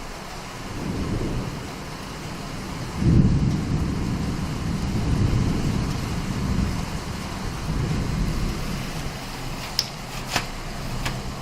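Thunder rolling over steady rain: a faint rumble about a second in, then a louder peal starting sharply about three seconds in that rumbles on for several seconds. Two sharp clicks near the end.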